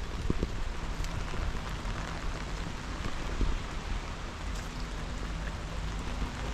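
Steady rain falling, an even hiss of drops, over a low rumble with a few soft knocks.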